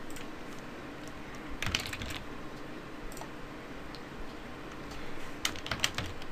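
Typing on a computer keyboard: a quick run of keystrokes about a second and a half in, a lone click a little later, and another run of keystrokes near the end as a password is typed.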